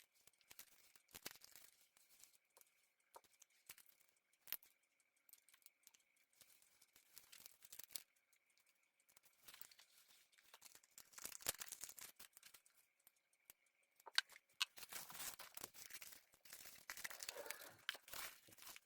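Packaging handled by hand: scattered soft clicks and crinkling of plastic and cardboard, with denser rustling over the last few seconds.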